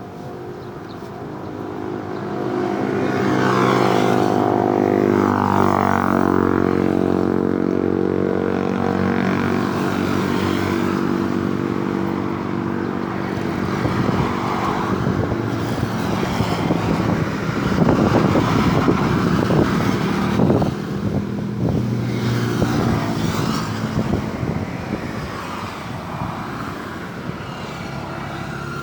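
Road traffic passing close by: a heavy vehicle's engine drones and drops in pitch as it goes past a few seconds in, and another loud vehicle passes near the middle.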